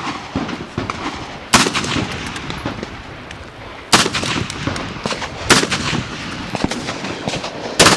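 Four loud rifle shots fired close by, spaced a second and a half to two and a half seconds apart, each with a short echo. Fainter shots from other shooters crack in between.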